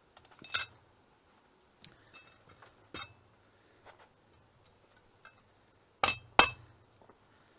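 Hammer blows on a steel draw knife against an anvil, ringing sharply, as the blade's bent handle end is straightened: one strike about half a second in, another near three seconds, then two hard blows in quick succession just after six seconds, with light taps and clicks between.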